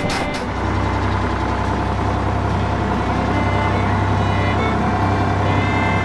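Heavy engine sound effect running with a steady low hum, starting about half a second in.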